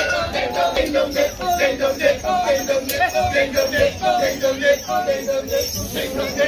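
Balinese traditional performance music: a quick, unbroken run of short pitched notes, several a second.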